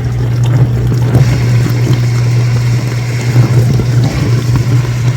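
Whirlpool dishwasher's pump motor running with a steady low hum, with water sloshing and spraying inside the tub.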